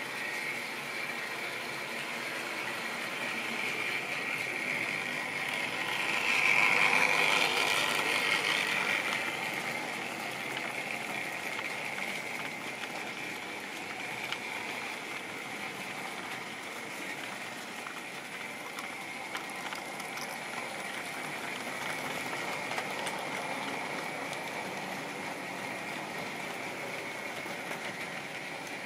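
Model railway goods train running on the track: a steady whirring of the locomotive's motor and the wagons' wheels. It swells louder for a few seconds about six to nine seconds in, and faint clicks come through later on.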